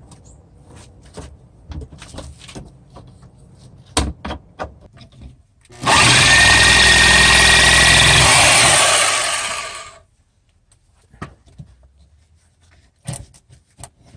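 Cordless drill running hard against a wooden floor beam for about four seconds, starting about six seconds in and then winding down. Light knocks and scrapes of handling come before and after it.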